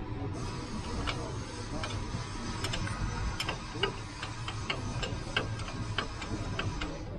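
Light metallic clicks, irregular and about two a second, of a wrench working a bolt on a water tanker pump's flange, over a steady low hum.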